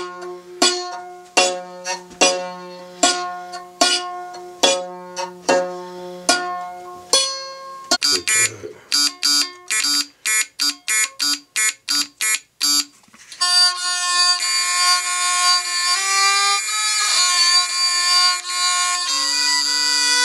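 Circuit-bent Stylophone on a violin, sounding buzzy electronic notes through its small speaker as a wire pick touches its contacts: first a string of repeated notes that each die away, then about a dozen quick short notes. From about two-thirds in, the violin is bowed, giving long sustained tones that slide in pitch.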